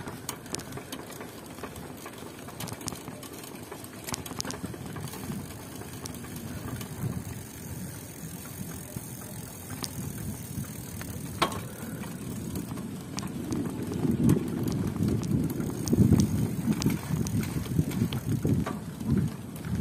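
Riding a bicycle: an uneven low rumble of the ride with scattered sharp clicks, growing louder over the last six seconds or so.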